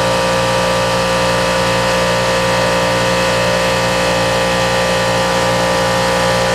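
Steady electric motor hum of a hydraulic press's pump unit running, an even mechanical drone with no change in pitch.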